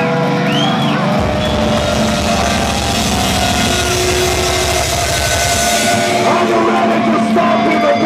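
Live heavy rock band playing loud through a club PA: distorted guitars, bass and a drum kit with crashing cymbals. The heavy low end drops away about six seconds in.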